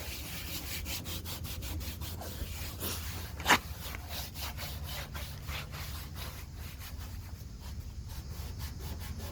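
Dried bird droppings being scraped and wiped off a Westinghouse street light fixture in a quick run of repeated rubbing strokes. One sharper, louder scrape comes about three and a half seconds in.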